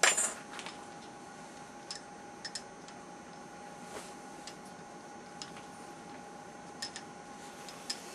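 A sharp metallic clink right at the start, then a few light, scattered ticks of metal on metal over a faint steady whine, at a small metal lathe being set up for turning a ferrule.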